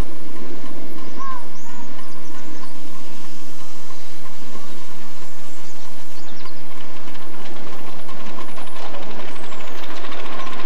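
Miniature live-steam locomotive hauling a passenger train past, steam hissing, with rapid clicking of wheels over rail joints building up about two-thirds of the way through.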